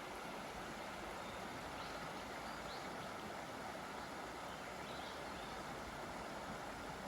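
Steady rush of a flowing freshwater stream, with a few faint short bird chirps over it.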